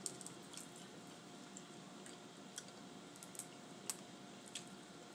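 Boiled crawfish being peeled by hand: faint scattered shell cracks and wet squishes, the sharpest click about four seconds in, over a low steady background hum.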